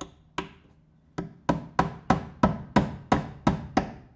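Claw hammer driving a small nail through the wooden top strip of a spice rack: two blows, a short pause, then a steady run of about three sharp blows a second that stops near the end.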